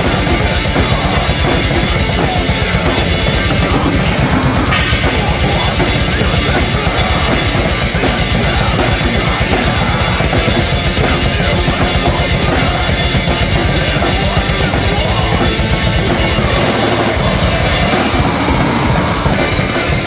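Drum kit played fast in a heavy-metal style: rapid, steady bass drum strokes under snare and cymbal hits. The bass drum pattern breaks up briefly near the end.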